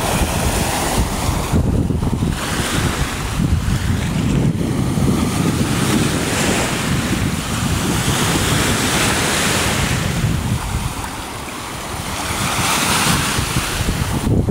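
Lake waves washing onto the beach, the rush swelling and fading every few seconds, with wind buffeting the microphone as a heavy low rumble.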